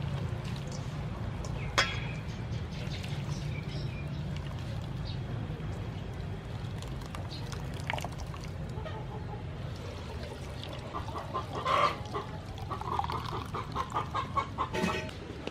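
Hands squeezing and kneading wet grated coconut in a steel bowl to press out coconut milk, with water poured into the bowl, then the milk poured through a plastic strainer near the end. A run of short, repeated animal calls sounds over the last few seconds.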